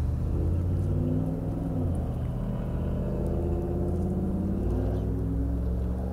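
Motor engine running steadily with a low hum, its pitch shifting down and up a couple of times as the engine speed changes.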